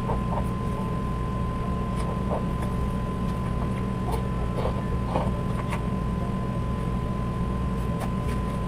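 Steady low machinery hum with a constant high-pitched whine, and scattered light clicks and knocks from hands and tools working on a Racor diesel fuel filter housing.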